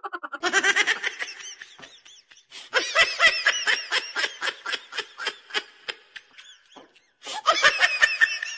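Laughter: a run of quick, high-pitched ha-ha bursts, breaking off briefly and starting again near the end.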